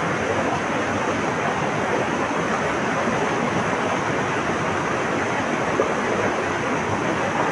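Flowing water, a steady even rush with no breaks or changes.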